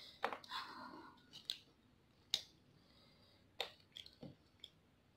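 Quiet eating sounds from a person picking at fried chicken by hand: about seven scattered sharp clicks and smacks of mouth and chicken, the loudest a little past halfway.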